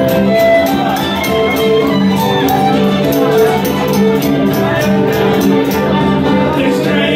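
Live folk band playing an instrumental passage: a fiddle plays the melody over an acoustic guitar strummed in a steady rhythm.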